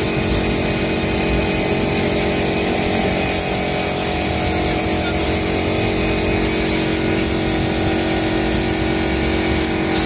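Gravity-feed air spray gun hissing steadily as it sprays paint onto a metal gate, over the steady hum of the air compressor that feeds it. Near the end the hiss breaks off for a moment a few times as the trigger is let go.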